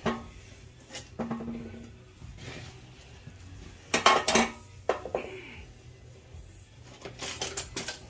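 Metal hand tools clinking and clattering in several short bursts, with the loudest clatter about four seconds in and another cluster near the end.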